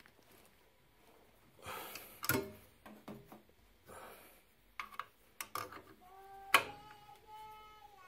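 Clicks and scraping of a steel open-end wrench on the brass pilot gas tube fitting of a Honeywell gas valve, a stiff fitting being worked loose, with a sharp metallic click about six and a half seconds in. A drawn-out wavering tone starts about six seconds in and carries on past the end.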